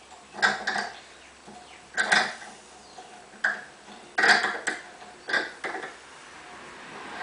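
An M6 tap being turned by hand into a brass rifle case, cutting a thread dry: a series of short, uneven creaks and squeaks of the tap biting into the brass.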